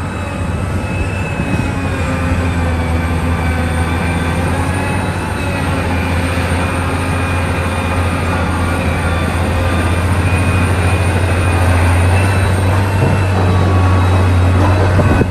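Heavy earthmoving machinery running: a deep, steady diesel drone with higher steady whines above it, slowly growing louder.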